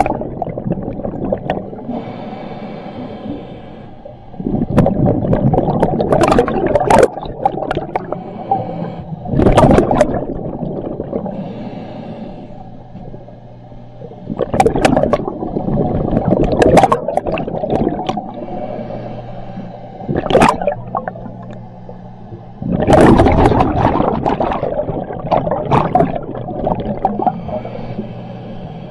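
Scuba diver breathing underwater through a regulator: a hiss on each inhale, then a loud burst of exhaled bubbles, about every five seconds.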